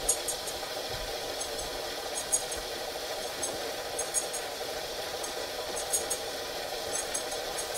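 Sony VHS video recorder running with a tape moving through it: a steady mechanical whir with small clusters of high-pitched ticks every second or so.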